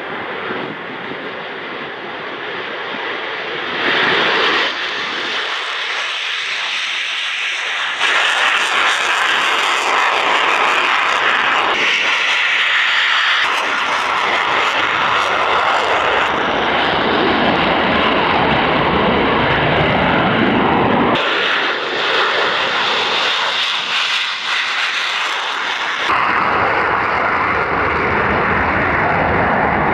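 F-35 Lightning II's single afterburning turbofan engine, steady jet noise across several abruptly cut clips, growing louder about eight seconds in.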